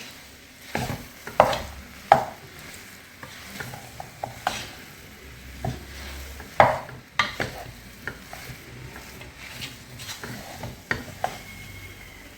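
A spoon stirring and scraping a rice, chicken and vegetable mix in a pan, with irregular scrapes and knocks against the pan.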